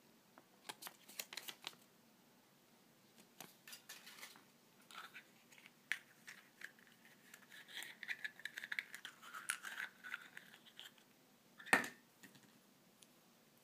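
Small plastic surprise-egg capsule and paper leaflet being handled: light clicks and paper rustles, then several seconds of plastic scraping and rubbing as the capsule is worked open by hand, and one sharp click a couple of seconds before the end.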